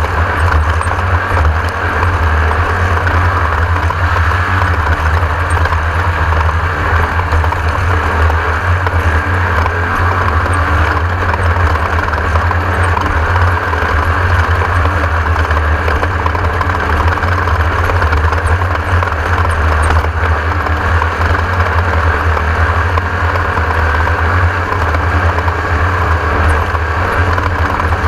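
Class 1600 off-road race car with its air-cooled 1600 cc Volkswagen engine running steadily, under a heavy low rumble with some rattle.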